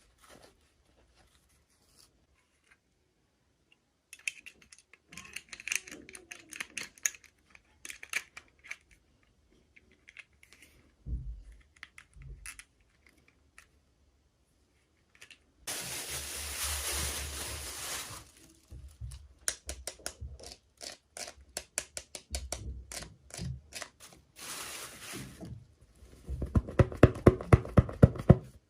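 Hands unboxing toys, handling plastic packaging: scattered clicks and crinkles, a steady two-second rasp about 16 seconds in, and a fast run of loud clicks near the end.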